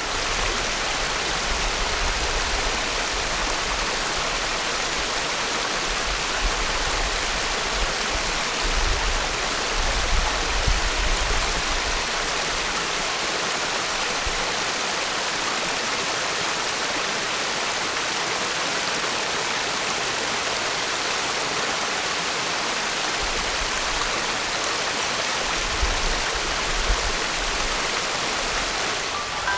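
Mountain headwater stream flowing steadily over rocks, a dense even rushing of water. A low rumble swells under it twice, once in the first half and once near the end.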